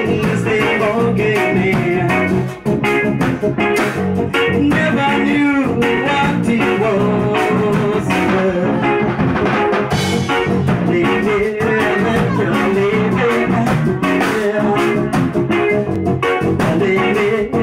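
Live band rehearsing through a PA: a vocalist singing into a microphone over electric bass and a drum kit.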